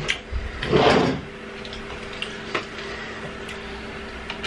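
A plastic water bottle handled with a brief rustle about a second in, then a man drinking from it, with a few soft swallowing clicks.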